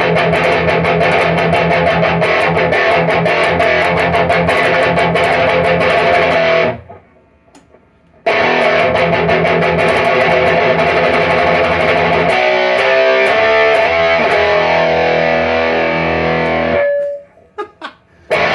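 Electric guitar played with heavy high-gain distortion through a REVV Northern Mauler pedal, a blend of a Revv drive circuit and a Boss HM-2 style "Swedish chainsaw" circuit, with the treble turned all the way up. The playing stops dead about seven seconds in and starts again a second and a half later, with a run of single notes partway through, and ends on a held note about seventeen seconds in.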